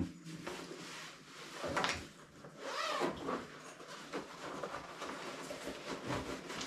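A camping chair's carry bag being opened and the packed chair pulled out: rustling and scraping of fabric, with a louder rising rasp about three seconds in.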